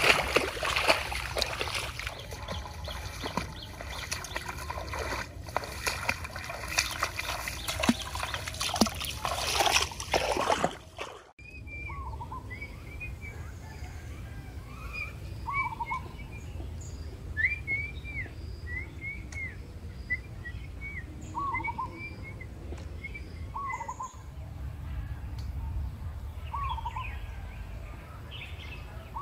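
A person walking through tall grass: a rustling swish with crackles. It stops abruptly after about eleven seconds, and birds are heard calling, with quick runs of short chirps and a lower call every few seconds.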